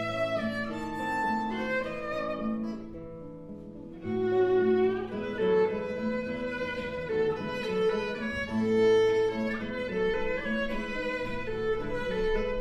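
Violin and classical guitar playing a duet: sustained bowed violin notes over plucked guitar accompaniment. The music drops quieter about two seconds in and comes back louder about four seconds in.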